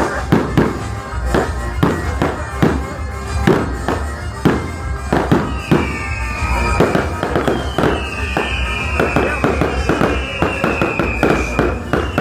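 Fireworks display bursting in quick succession, many sharp bangs over background music. From about halfway there are repeated high falling whistles, one every couple of seconds.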